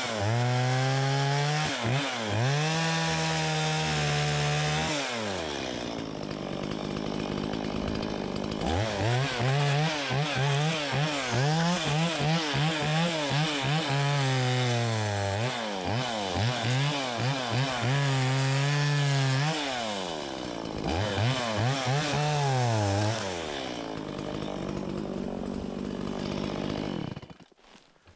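Stihl MS 170 30 cc two-stroke chainsaw revving to full throttle in several bursts as it cuts through a small fir log, dropping back to idle between cuts. The engine stops near the end.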